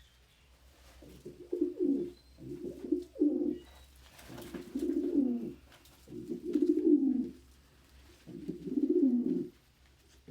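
Male domestic pigeon cooing, about six low coos in a row, each about a second long and rising then falling in pitch: courtship cooing at females.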